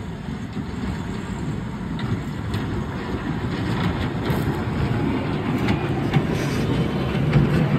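Caterpillar kiddie-ride train running on its small rail track, a steady rumble of wheels on rails that grows louder as it comes closer.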